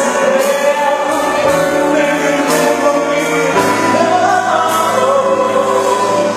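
A song with singing over instrumental accompaniment, held notes over a bass line that changes every couple of seconds.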